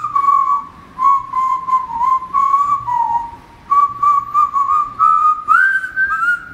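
A person whistling a tune in short notes within a narrow range, with a brief pause about three seconds in.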